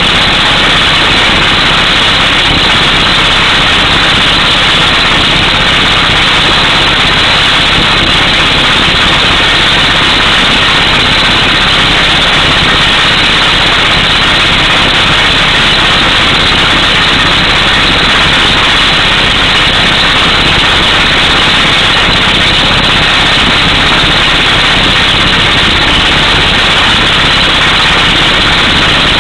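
Pneumatic air hammer on a truck-mounted drill rig drilling through solid rock: loud, steady rapid hammering with the rush of compressed air blowing rock dust out of the hole, over the running engine.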